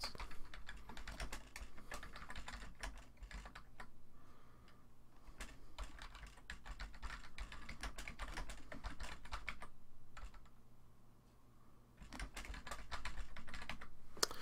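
Typing on a computer keyboard: quick runs of key clicks, breaking off for about two seconds before a last flurry of keystrokes near the end.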